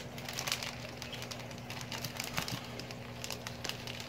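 Clear plastic fish-shipping bag crinkling and crackling in the hands as it is worked open, with scattered sharp crackles, over a low steady hum.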